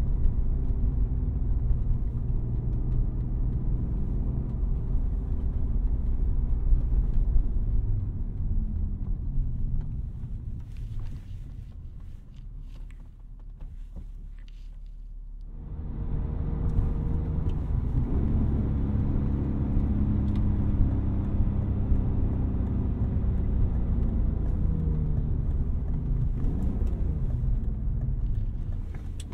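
1999 BMW E36 M3's S52 inline-six running as the car is driven. About ten seconds in the engine sound falls away for several seconds. It comes back suddenly at around sixteen seconds, and its pitch climbs as the car pulls.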